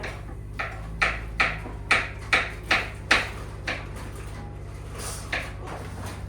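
A quick series of sharp knocks, about two to three a second, over a steady low hum; the knocks are loudest in the middle and thin out towards the end.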